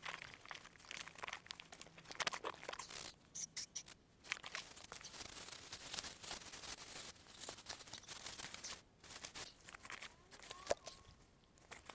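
Irregular rustling and crinkling of fabric and camping gear being handled and packed up, with brief pauses.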